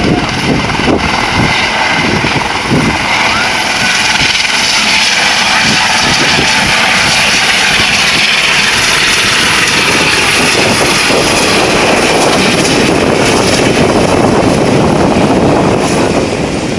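Helicopter lifting off and flying low overhead, its rotor and engine loud and steady. A low beating of the rotor in the first few seconds gives way to a fuller, steadier rush.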